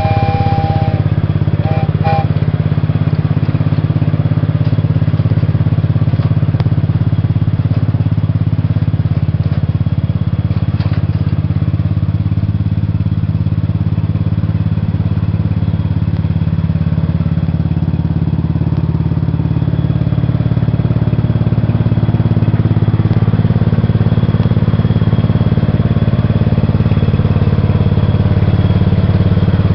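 Cub Cadet lawn tractor engine running steadily under the homemade trackless train as it drives along, slightly louder near the end.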